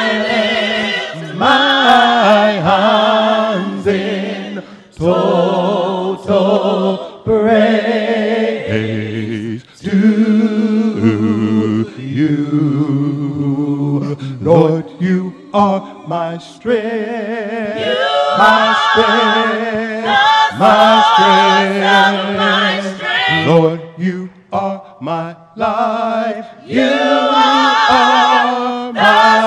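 Women's a cappella gospel group singing in close harmony without instruments, in phrases broken by short pauses.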